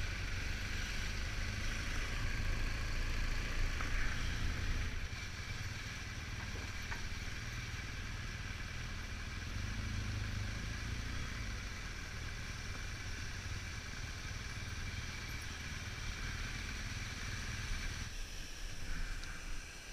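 BMW motorcycle's engine running at low speed, a steady low rumble, dropping back slightly near the end as the bike slows.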